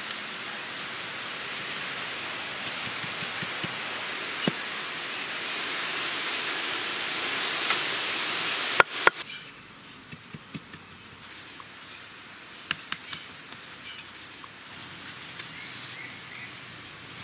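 Steady outdoor hiss, then two sharp knocks about nine seconds in. After that it is quieter, with scattered light taps and clicks of limestone slabs being set onto wet cement and tapped down with a wooden stick.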